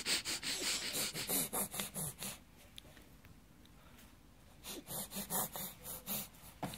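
A baby making a silly huffing noise: quick, breathy puffs and snorts, about four or five a second, in two runs with a pause of about two seconds between them.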